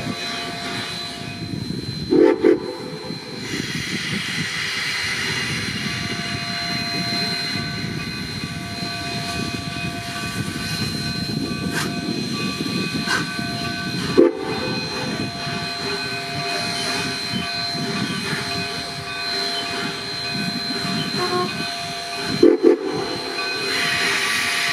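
Coal-fired narrow-gauge steam locomotive hissing steam steadily, with three brief low thumps: about two seconds in, near the middle and near the end.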